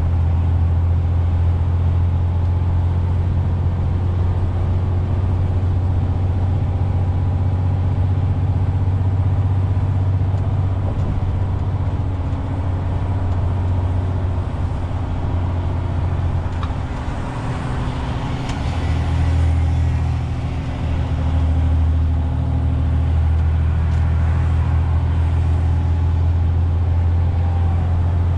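MAN TGX 470 truck's 12.4-litre straight-six diesel engine cruising at steady motorway speed, heard from inside the cab as a steady low drone over tyre and road noise. About two-thirds of the way through the drone eases briefly and a rush of hiss swells, then the steady drone returns.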